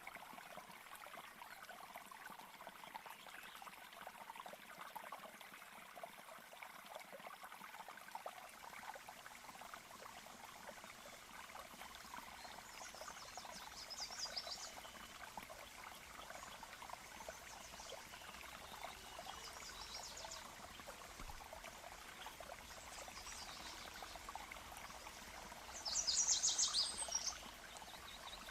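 Nature-sound track of a small stream trickling and burbling steadily. A few short, high chirping trills from a bird or insect break in now and then, the loudest near the end.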